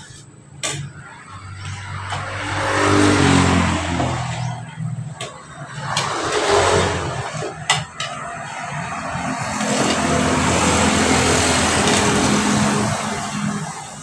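Motor vehicles passing by. The engine noise swells and fades about three times, with the engine note gliding up and down as the first one goes past. A couple of sharp clinks of spoons on plates come about five and eight seconds in.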